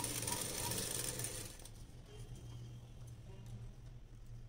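Sewing machine stitching, running for about the first second and a half and then stopping.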